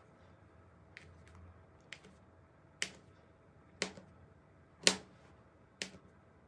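Kitchen knife cutting through a log of dough, the blade knocking on the glass worktop at each slice, about once a second, six sharp taps with the loudest near the end.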